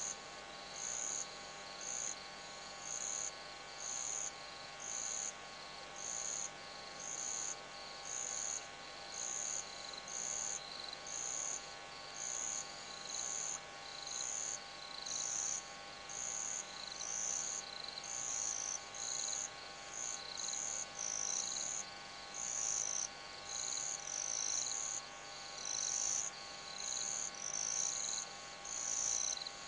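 Night insects calling in short, high-pitched chirps about once a second, a second caller overlapping in the later part, over a faint steady hum.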